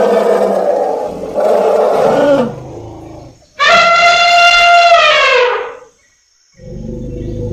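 Elephant trumpeting: a long call that breaks off about two and a half seconds in, then a second loud trumpet blast of about two seconds that sags in pitch as it ends. A lower, steady sound begins near the end.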